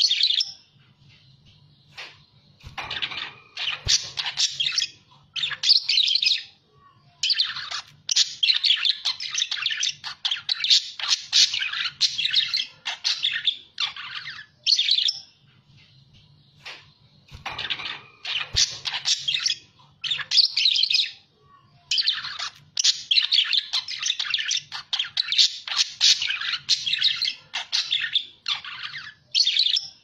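Budgerigars chattering: dense runs of quick chirps, warbles and squawks in bursts of a few seconds, broken by short pauses.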